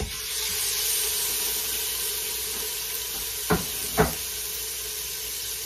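Beef sizzling as it sears in hot butter and oil in an Instant Pot's stainless insert on sauté; the sizzle starts suddenly as the meat goes in. Two sharp knocks come about three and a half seconds in.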